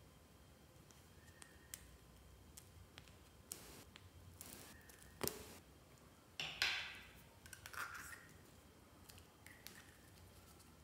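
Quiet handling of a small plastic toy clay container: scattered soft clicks and short rustles, with one sharp click about five seconds in and a louder rustle a second or so later.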